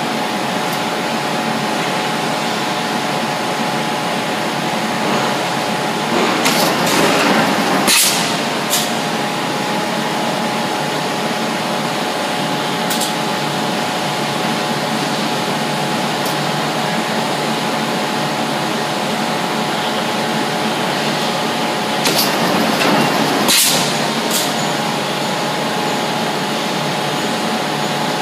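A press brake and its robot cell running: a steady machine hum with a faint whine, which twice grows louder for about two seconds and ends in a sharp click as the press cycles.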